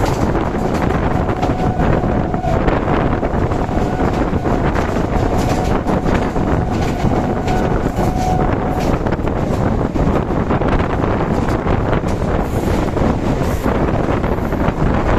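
Passenger train running at speed, heard from on board as a steady rushing rumble, with wind buffeting the microphone. A faint steady whine sits under it from about a second in until about nine seconds.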